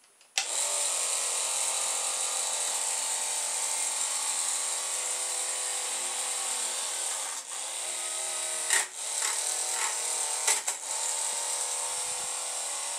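Small battery-powered electric fan motor switching on about half a second in and running steadily with a high whirr. A few brief knocks come near the middle.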